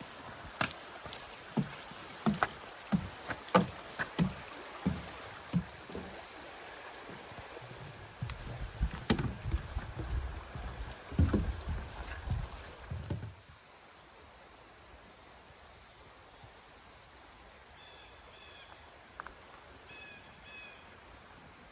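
Footsteps of a hiker on a trail, a regular thud about every two-thirds of a second, then a jumble of low thumps and rumble. About 13 seconds in this gives way abruptly to a steady high insect drone with fast pulsing and short repeated chirps.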